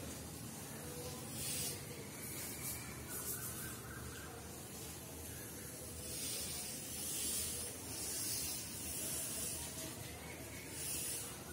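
Chalk drawing long lines on a blackboard: a series of scratchy hissing strokes, the longest about halfway through, over faint steady room noise.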